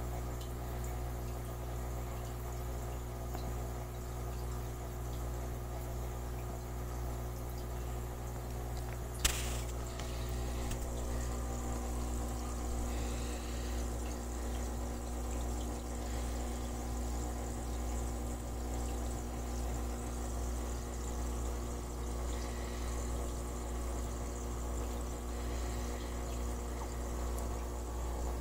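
Aquarium equipment humming steadily, with water bubbling from an air-driven LED bubble wand in the tank. A single sharp click about nine seconds in.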